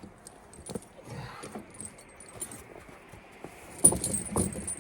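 Steel tire chains clinking and jingling as they are laid over and walked around a raised backhoe tire, with a few light clinks at first and a louder run of clanks near the end.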